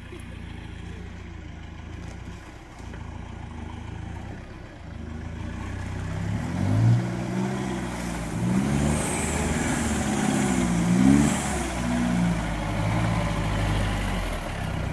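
Lifted Mahindra Roxor's 2.5-litre turbodiesel, fitted with an aftermarket exhaust, pulling through mud. The revs rise and fall several times from about halfway through, and the engine grows louder as the Roxor comes up to the camera.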